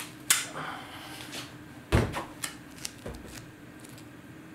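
Handling noise from hands wrapping duct tape around a small plastic cable tie: short clicks and rustles, with a dull thump about two seconds in and a smaller one about a second later.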